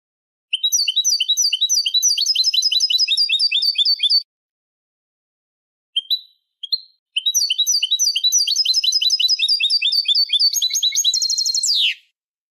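Recorded song of a European goldfinch played as a tutor tape: two long phrases of fast repeated chirping notes, about five or six a second, with a couple of single calls between them. The second phrase ends in a very fast rattle and a quick falling note.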